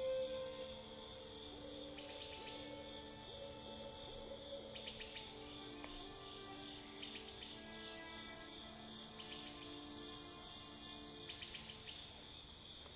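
Steady high trilling of crickets, with clusters of short chirps every couple of seconds and soft held musical notes underneath.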